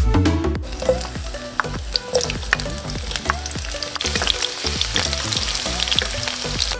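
Sliced red onion sizzling as it drops into hot cooking oil in a pan, with a spatula scraping and tapping now and then as the onion is pushed in and stirred. The hiss starts about half a second in and grows denser toward the middle.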